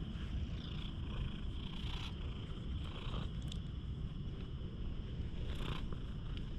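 Tabby cat purring steadily while being stroked under the chin, with a few brief soft brushing sounds of hand on fur.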